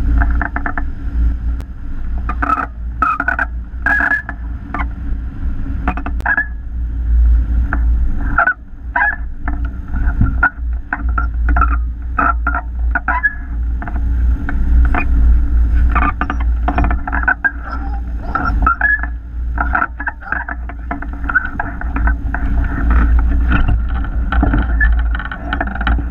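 Airflow buffeting a hang glider's wing-mounted camera microphone in flight: a steady low wind rumble with many irregular rattling clicks over it.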